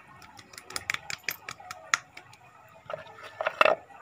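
A quick run of light clicks and taps about a second in, then a louder bump and rustle near the end as a hand handles the phone close to its microphone.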